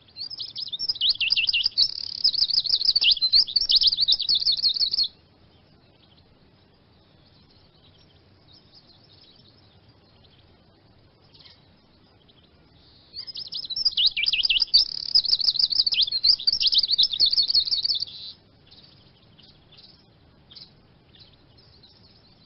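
Eurasian siskin singing: two long bouts of fast, dense, high twittering, each about five seconds, with faint scattered chirps between them.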